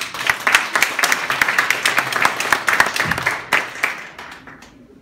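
A small audience applauding, the claps thinning out and dying away about four and a half seconds in.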